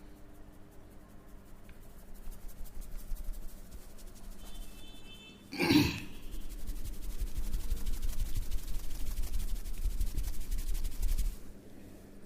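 Hands working fast over the head and skin in a massage, a dense run of rapid rubbing and slapping strokes that stops suddenly near the end. A single sudden loud burst comes about halfway through, just before the fast strokes begin.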